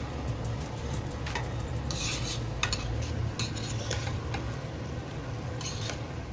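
Metal spatula scraping and clinking against a black cooking pot as rice, dal and chopped vegetables are stirred. The strokes come irregularly, with a few sharper clinks, over a steady low hum.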